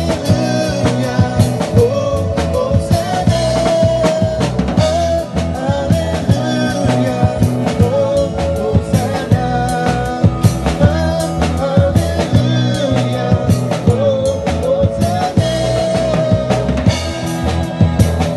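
Live band playing a Garo gospel worship song: a drum kit keeps a steady beat over bass, with a voice singing the melody.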